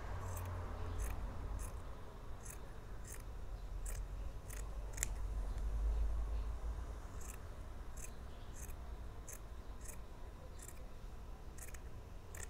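Scissors snipping repeatedly through polyester fleece fringe, cutting it into thin strips, about two snips a second with a pause of a couple of seconds midway. A low rumble runs underneath.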